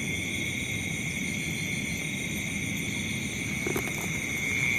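Steady night chorus of crickets and other insects, several high unbroken tones, over a low steady rumble.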